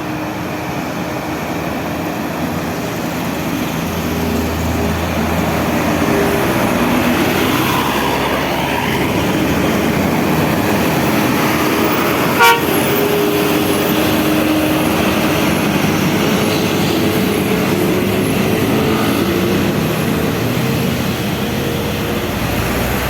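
Road traffic of buses and trucks passing, a steady engine and tyre roar with horn tones sounding on and off. A single sharp click about halfway through.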